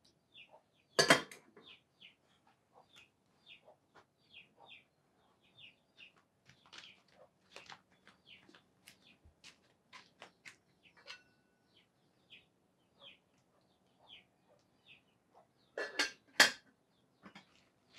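Small birds chirping over and over, a short high call two or three times a second. A loud clatter of dishes comes about a second in, and two more come near the end.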